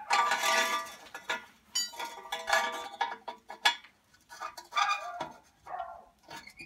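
A dog whining and yelping in repeated high cries that rise and fall, loudest in the first second. Between the cries come sharp metallic clinks from a tractor's exhaust pipe being handled and fitted.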